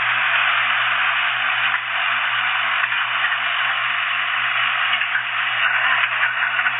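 Backhoe running: a steady engine drone under a loud, even hiss.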